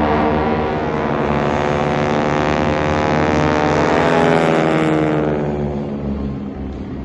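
Aircraft engine passing by in a display pass, its tone sliding down in pitch as it goes past and fading out near the end.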